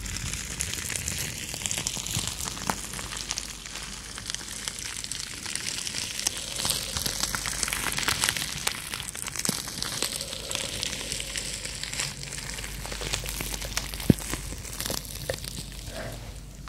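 Plastic bubble wrap crinkling and crackling as hands squeeze and rub it close to the microphones: a dense run of small ticks with one sharp click near the end.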